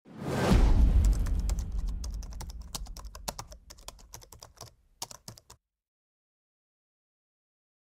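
Computer-keyboard typing sound effect, a quick run of key clicks as on-screen text types itself out. It opens with a loud low boom that fades over a couple of seconds, and the clicks stop about five and a half seconds in.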